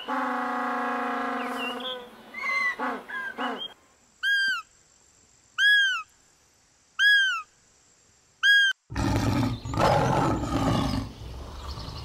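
A run of animal calls. First penguins bray: a long, held call, then several shorter ones. Then come four short, high calls, each rising and falling, about a second and a half apart, and a lion's rough roar fills the last three seconds.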